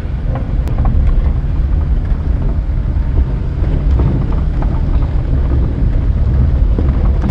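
A 1992 Daihatsu Hijet Climber mini truck's 660cc three-cylinder engine running as it drives over a rough rock tunnel floor, heard from inside the cab as a steady low rumble.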